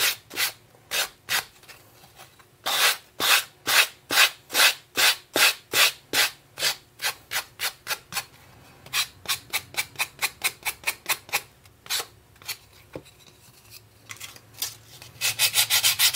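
Sanding block dragged in repeated strokes across the edge of a wooden coaster, cutting away the overhanging paper napkin: about two rasping strokes a second, quickening past the middle, then a short pause. Near the end a small sanding pad takes over with faster, louder rubbing.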